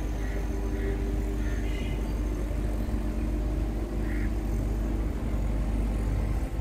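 Steady hum of construction machinery over a low wind rumble on the microphone, with five or so short, harsh bird calls scattered through.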